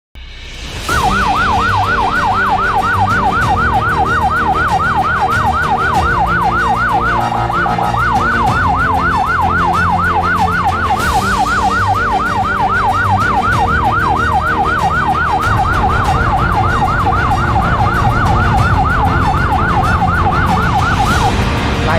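Electronic emergency siren on a rescue vehicle, sounding a fast yelp that sweeps up and down in pitch about four times a second over a steady low rumble. It breaks briefly once and stops near the end.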